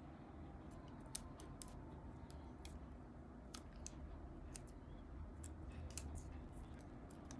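Faint, irregular small clicks and crackles of a paper sticker label being handled and pressed onto an M.2 SSD's circuit board by fingers.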